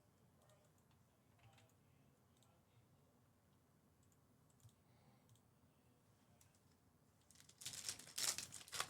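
Near silence with a few faint clicks, then, about seven and a half seconds in, a short burst of crinkling and rustling as trading-card packs and cards are handled.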